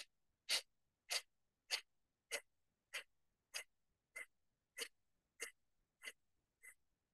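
Kapalbhati breathing: short, forceful exhalations pushed out through the nose in an even rhythm, a little under two a second.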